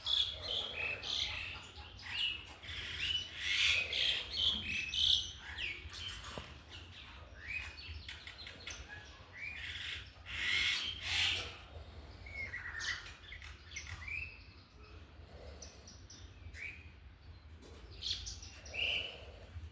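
Several small birds chirping and calling with many short overlapping chirps, busiest in the first half and thinning out later, over a steady low hum.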